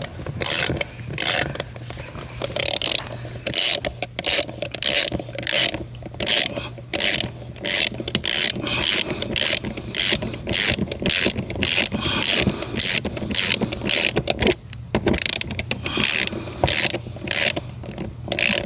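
Ratchet wrench driving a 14 mm hex-head lag screw through the bracket into wall sheathing: the pawl clicking in short bursts about twice a second on each return stroke, with a brief pause about two-thirds of the way through. The screw is going in easily, a sign the pilot hole is a little too large.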